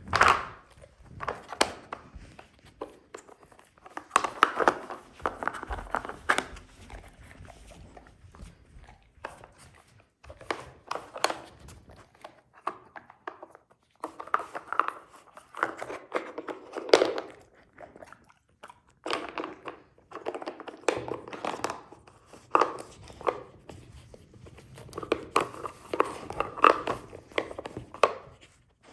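A goldendoodle puppy working a dog treat puzzle toy with his nose: irregular knocking and clattering of the toy's compartments, in clusters with short pauses, mixed with crunching as he chews the treats he uncovers.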